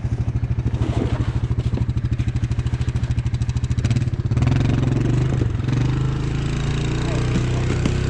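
Small engine running steadily at low speed, its exhaust pulsing evenly; the pulsing smooths out about four seconds in.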